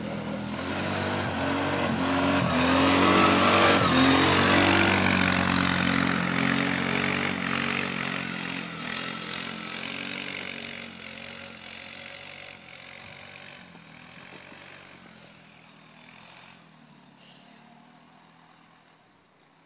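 Polaris 6x6 ATV engine running and revving, growing louder to a peak about three or four seconds in, then fading gradually until it is faint near the end, as the machine moves away.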